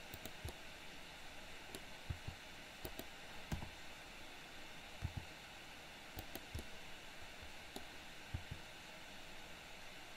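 Faint steady hiss with scattered soft clicks and a few low thuds from a computer mouse and keyboard being worked, about a dozen spread irregularly through the stretch.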